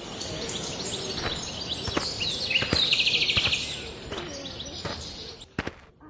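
Several wild birds chirping and calling, with a fast rattling trill about three seconds in, over a steady high hiss. The hiss cuts off suddenly near the end, and a few sharp clicks follow.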